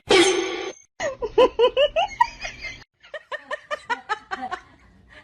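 People laughing hard in quick repeated bursts, in two runs with an abrupt break between them, after a brief loud burst of sound at the very start.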